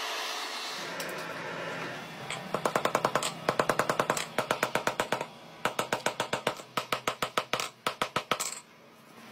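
A steady rushing noise from a burning forge fire, then runs of rapid, evenly spaced hammer blows on red-hot steel on an anvil, about seven or eight a second with short pauses between runs, stopping near the end.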